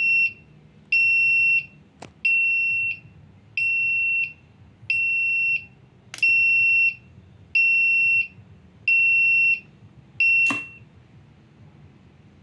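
Lift control panel buzzer beeping in an even pulse: nine high beeps about 1.3 s apart while the up arrow shows, the run signal of the lift travelling up. Three sharp clicks from the roller-lever limit switches being pressed. The beeping stops with the last click, as the floor-2 limit switch is tripped and the display changes to 2.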